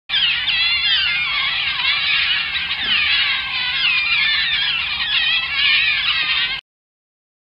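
A pack of African wild dogs (painted wolves) twittering: many high, squeaky calls overlapping and wavering up and down in pitch. The calls stop abruptly about six and a half seconds in.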